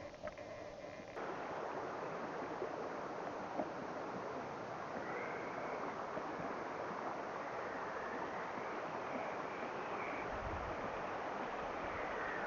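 Steady rush of flowing water, like a stream running, setting in suddenly about a second in.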